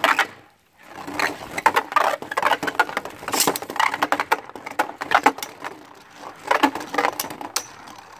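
A Beyblade launcher ripcord is pulled sharply at the start. After a brief lull, two Beyblade Burst Rise spinning tops clatter and scrape against each other and the plastic stadium, a busy, uneven run of clicks and knocks.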